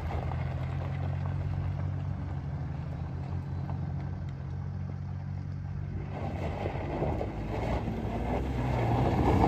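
Off-road truck engine running with a steady low hum. From about six seconds in it revs harder and gets louder toward the end as the truck does donuts in the dirt.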